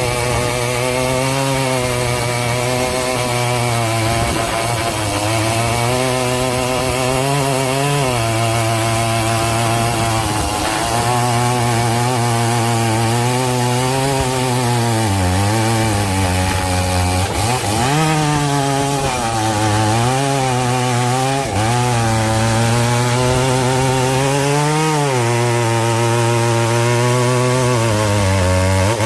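Two-stroke chainsaw running hard while cutting wood. Its pitch dips several times as the chain bites in the cut, then climbs back.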